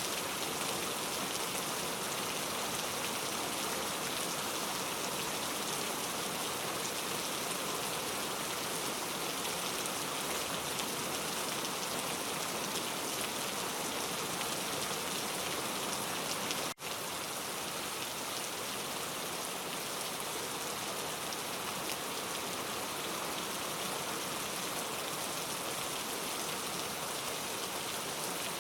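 Steady, dense rainfall, an even hiss of drops with no thunder. The sound briefly drops out for an instant about two-thirds of the way through, then carries on as before.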